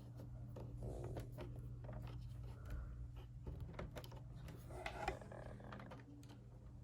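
Faint clicks and short scrapes of hands turning the thumbscrews on a VGA cable connector at a laptop's port, with one louder knock about five seconds in. A steady low hum runs underneath.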